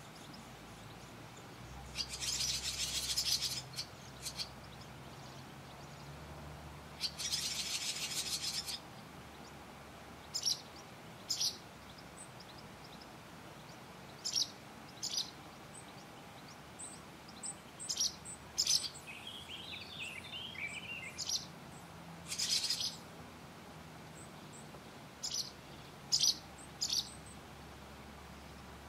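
Barn swallows chirping: short high chirps scattered throughout, with two longer, harsher bursts of about a second and a half each near the start, and a quick run of falling twittering notes about two-thirds of the way through.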